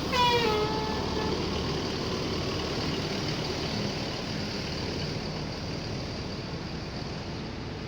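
A bus horn gives one short tone that slides down in pitch over about a second, then a bus diesel engine runs steadily at idle.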